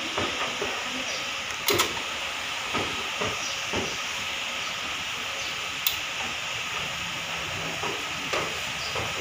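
Sharp metallic clicks of pliers working the drum-brake shoe springs and hardware, a quick double click about two seconds in and a single one about six seconds in, over a steady hiss of workshop background noise.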